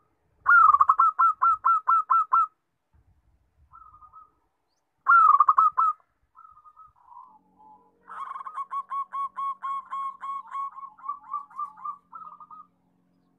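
Zebra dove (perkutut) cooing in rapid staccato runs. A loud run of about eight coos comes near the start, a short burst of a few coos about five seconds in, and a longer, quieter run of about fifteen coos in the second half.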